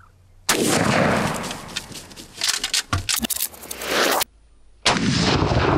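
A loud shotgun blast at a turkey, dying away over a second or so, followed by irregular rustling and thumps; after an abrupt break, a second shotgun blast near the end.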